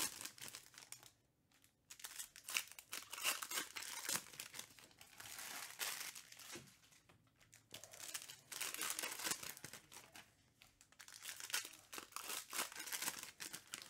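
Trading card packs being opened and handled: plastic wrappers crinkling and tearing in bursts, with brief pauses between them.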